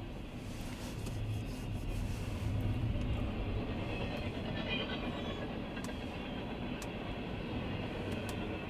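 Freight train rolling past: a steady low rumble of the cars on the rails, loudest a few seconds in, with a few sharp clicks.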